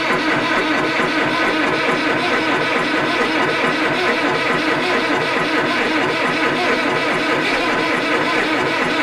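Landini 8880 tractor's four-cylinder Perkins 248 diesel running steadily just after a cold start at −2 °C without preheating, heard from inside the cab.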